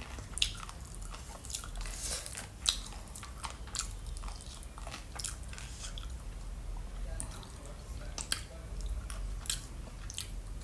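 A person chewing crunchy food close to the microphone: irregular crisp crunches and bites, a few sharper ones standing out.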